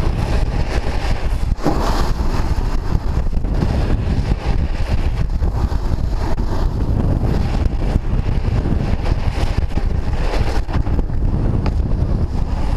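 Wind buffeting an action camera's microphone while snowboarding fast down a groomed slope, with the board's edges hissing and scraping on the hard man-made snow.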